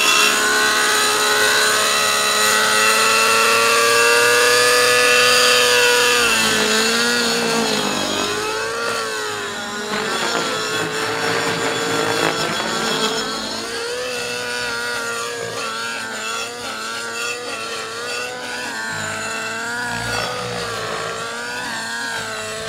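MSH Protos 700 Nitro RC helicopter's glow (nitro) engine and rotor in flight: a strong, steady engine note with many overtones. From about six seconds in its pitch dips and wavers as the helicopter manoeuvres, and it grows fainter as the helicopter flies farther off.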